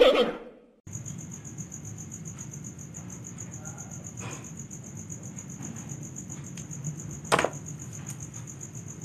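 Crickets chirping steadily as a high, evenly pulsing trill from about a second in, over a low background hum. A single sharp knock comes about seven seconds in. At the very start the tail of an animal call fades out.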